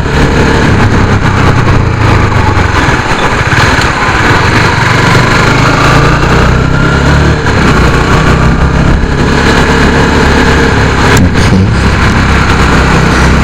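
Motorcycle engine running steadily under an even hiss of white noise picked up by the action camera's microphone.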